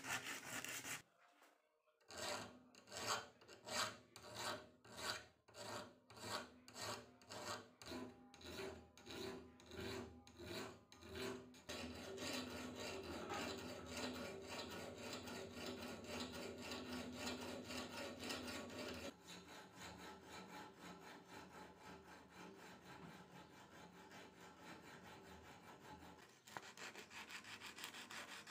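Flat metal file worked across the edge of a steel axe blade in regular strokes, about two a second, then going over into a steadier, quieter scraping. Near the end the sound changes to sandpaper rubbed by hand over the axe head.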